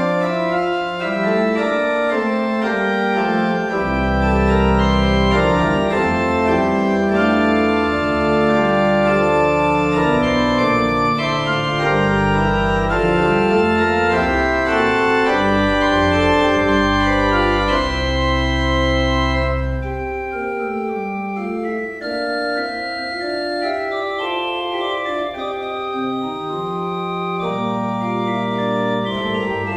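Church organ playing the prelude to a service: sustained chords and a moving upper line over deep pedal notes. The deep bass drops out about two-thirds of the way through and comes back near the end.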